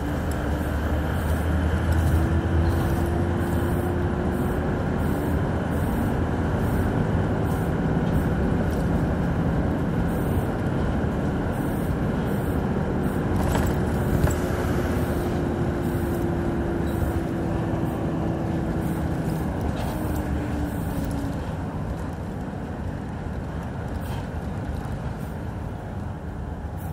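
A 2006 Hyundai Aero City 540 bus engine running steadily, with a whine that rises slowly and holds twice, then falls away about four-fifths of the way through as the engine sound eases.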